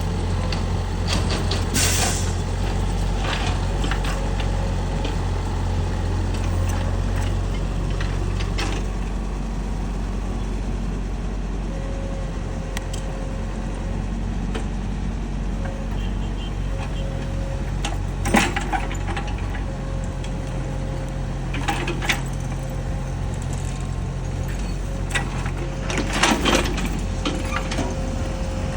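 Mini excavator engine running steadily, its note shifting a couple of times, with a faint on-and-off whine and a few sharp metallic clanks.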